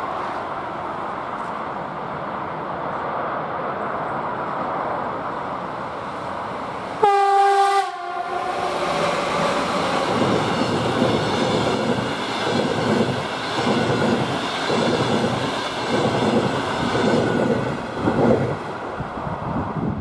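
A passenger train hauled by two Sr3 electric locomotives approaches at speed, and the locomotive sounds its horn in one short blast about seven seconds in. The coaches then pass close by with a steady rush and a rhythmic clatter of wheels over the rails.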